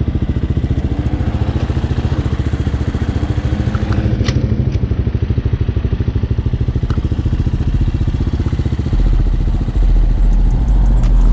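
Hawk 250cc motorcycle engine running with a steady, even beat, heard through a microphone inside the rider's helmet. A deep low rumble grows louder about nine seconds in.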